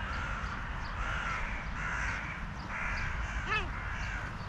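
Crows cawing: several harsh caws, then a clearer, downward-bending call about three and a half seconds in.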